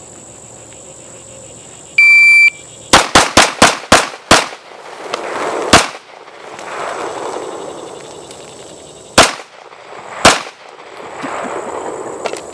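A shot-timer beep, then a gold-plated 2011 STI pistol fires six fast shots in about a second and a half, followed by three more spaced-out shots. Between the shots comes a rushing hiss as the punctured 2-liter diet soda bottles spray. Crickets trill steadily throughout.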